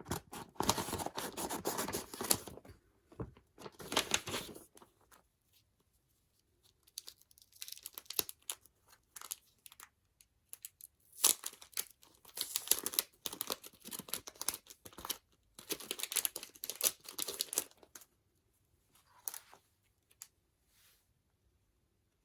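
Packaging being torn and crinkled open by hand, in about six short crackly stretches with pauses between, without scissors.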